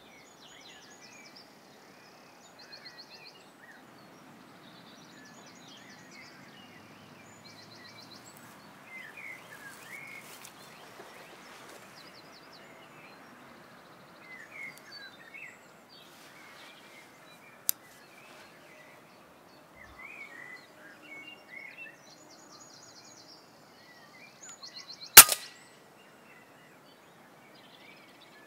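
Birds chirping and trilling over a quiet outdoor background, with a faint click partway through. About three-quarters of the way in comes a single sharp crack, by far the loudest sound: a shot from the FX Impact MkII precharged pneumatic air rifle.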